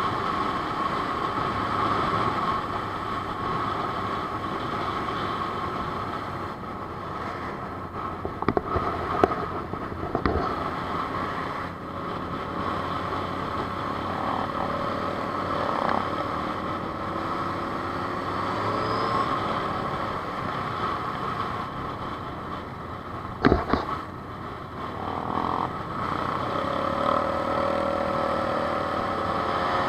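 Steady rush of wind on the microphone over the running engine of a Honda CBR600 F4i inline-four sportbike at cruising speed. A few sharp knocks come about a third of the way in, and a louder one about three quarters through.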